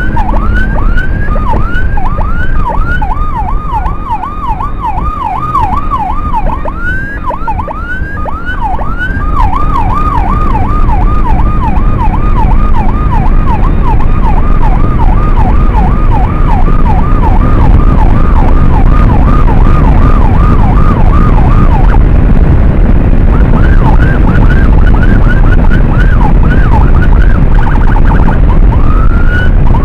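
Electronic emergency siren in a fast yelp, about two rising-and-falling sweeps a second, over a heavy low rumble of wind and engine from the moving motorcycle. The steady yelp breaks off about 22 seconds in, and only short scattered sweeps follow.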